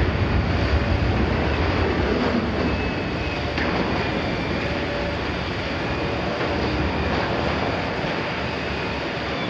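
Liebherr 974 demolition excavator working its attachment into a steel oil tank: a steady din of the machine's engine and hydraulics with grinding, scraping steel and faint high squeals. The low rumble is heaviest in the first three seconds or so.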